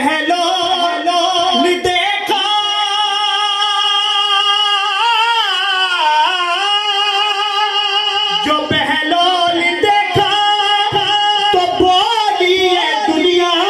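A man singing a naat, an Urdu devotional hymn in praise of the Prophet, solo into a microphone. Near the start he holds one long wavering note for about six seconds, then moves on through shorter ornamented phrases.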